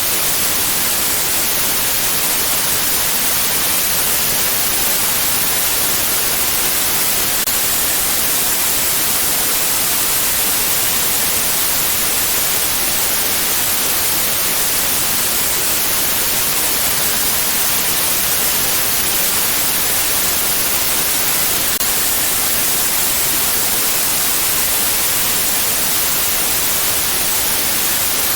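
Steady white noise: an even, unbroken hiss, brightest in the high treble, that holds the same level throughout.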